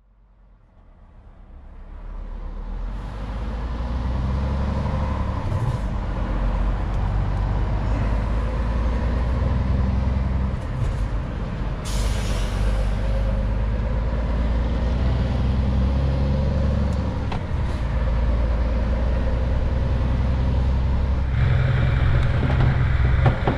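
Heavy truck's diesel engine running as the truck pulls away at low speed, fading in over the first few seconds. About halfway through comes a short hiss of air from the air brakes, and near the end the engine sound gets fuller and louder.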